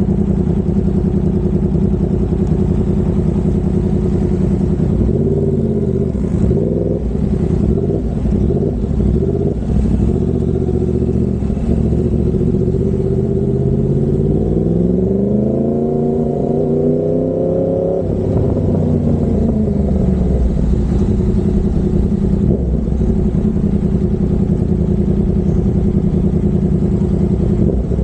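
Yamaha MT-10's 998 cc crossplane inline-four running through an SC Project 70 mm carbon-titanium exhaust at low speed. About halfway through, the revs climb steadily for several seconds, then drop off sharply before it settles back to a steady low run.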